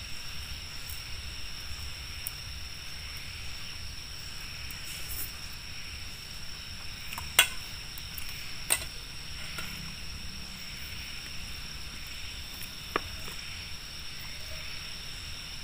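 Night insects chirping in a steady, high-pitched chorus over a low steady rumble, with three sharp clicks in the middle, the first about seven seconds in being the loudest.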